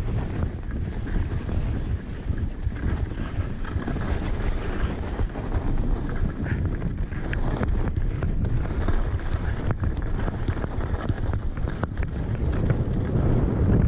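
Wind buffeting the camera microphone while skiing down a snowy track, a steady low rumble, with the hiss and scrape of skis sliding over packed snow beneath it.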